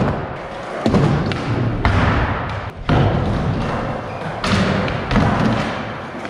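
Skateboards rolling on a concrete floor and wooden obstacles, with about four sharp knocks of boards hitting the ground.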